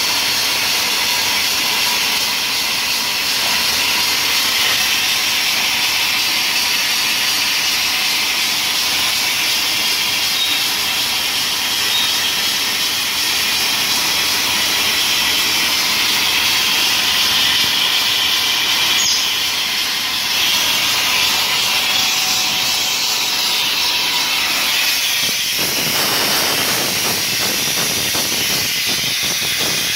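Dry ice blasting machine spraying through its nozzle with a loud, steady hiss of compressed air. About 25 s in, a rough crackling joins the hiss.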